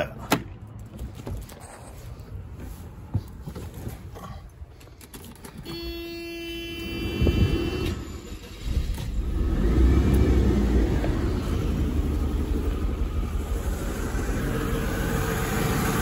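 Early-1990s Mercedes-Benz straight-six engine being started: a brief steady tone, then the starter cranks and the engine catches about eight seconds in and settles into a rumbling idle. It is running with a misfire, one cylinder (number 6) still not firing after a new coil, which the owner blames on the deteriorating original wiring harness.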